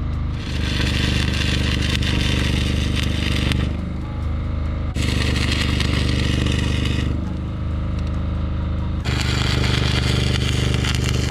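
Electric arc welding on steel deck plate: three runs of harsh crackling and sizzling, each a few seconds long, starting and stopping abruptly, over a steady low hum.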